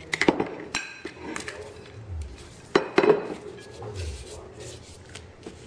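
Kitchen dishes being handled: a few sharp clinks and taps of a utensil against glassware, the loudest around three seconds in, with a couple of dull knocks.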